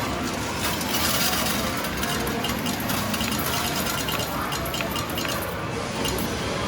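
Metal medals clinking and clattering as they drop and slide in a Gacha Mambo! Jr. medal pusher game, over a steady arcade din.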